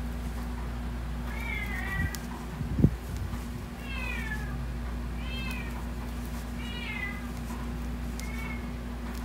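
A cat mewing repeatedly, about five short, high-pitched, arching mews a second or so apart. A steady low hum runs underneath, and a sharp thump comes about three seconds in.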